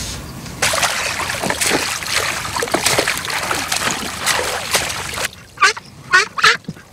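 Lake water splashing and sloshing, as if stirred by someone moving in it. Near the end the splashing stops and a few short bird calls follow.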